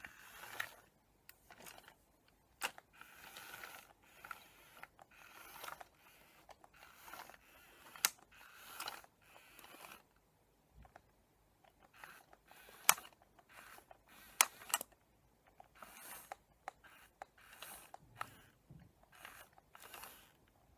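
Small geared motor of a Tomy remote-control Eevee toy whirring in short, irregular bursts as it drives and turns, with a few sharp clicks.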